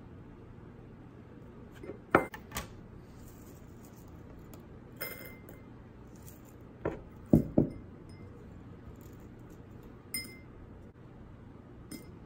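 Loose LEDs clicking and clinking as they are handled and dropped into a glass bowl: a handful of separate sharp clinks, the loudest pair a little past the middle.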